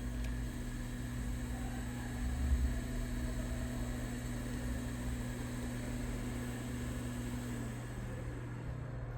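Steady airy hiss with a low hum, typical of a hot air rework station's blower running; a low tone in it drops away near the end.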